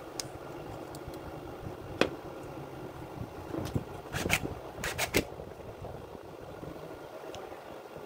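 Small plastic and metal parts of a mains plug being handled and fitted: several sharp clicks and taps, one at about two seconds and a cluster about halfway through, over a steady low hum.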